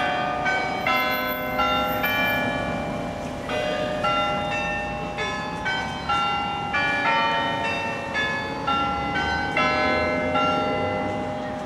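Bournville Carillon's tower bells playing a tune: a melody of struck bell notes, several a second and often sounded together as chords, each note ringing on under the next.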